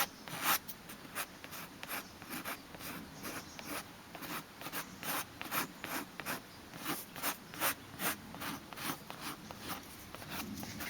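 Repeated short scraping strokes of a tool spreading leather filler over a leather seat bolster, working it into the cracks, a few strokes a second.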